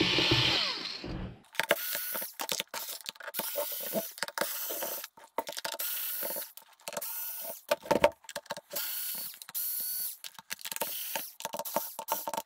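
A small cordless electric screwdriver backing screws out of a plastic battery-pack case. It runs in many short stop-start bursts of motor whine, with clicks between them.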